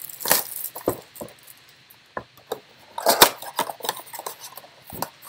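Baseball trading cards handled by hand as a stack is flipped through: a string of short sharp clicks and slides, the loudest a little past halfway.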